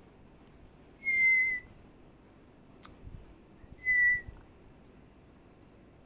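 Two short, clear whistles at about the same pitch, the first about half a second long and slightly falling, the second briefer about three seconds later.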